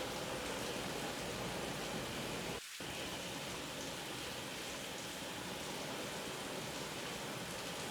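Heavy rain falling steadily, an even hiss with no thunder. About two and a half seconds in, the sound thins for a split second as its low end drops out, then carries on.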